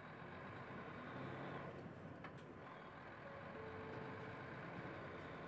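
Diesel engine of an early Odakyu Bus 6000-series city bus running as the bus pulls away from a stop, heard from inside the cabin. The engine note strengthens about a second in, and a faint steady whine comes in briefly past the middle.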